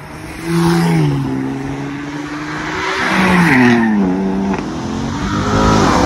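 Cars accelerating past one after another, each engine note swelling and then dropping in pitch as it goes by; the first is a Porsche 911.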